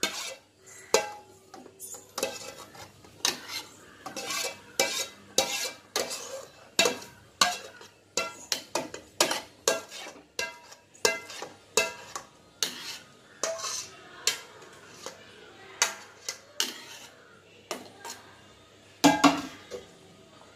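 Steel spoon scraping a thick cooked milk-and-wheat-flour mixture out of a pan into a stainless steel mixer-grinder jar. It makes a run of irregular clinks and scrapes, metal on metal, about one or two a second.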